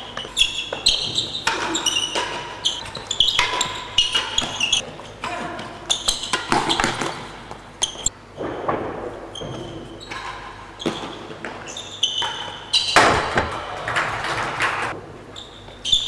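A real tennis rally: the hard ball is struck by rackets and rebounds off the walls, floor and sloping penthouse roof in a run of sharp, irregular knocks that echo in the enclosed court. A longer rush of noise comes about thirteen seconds in.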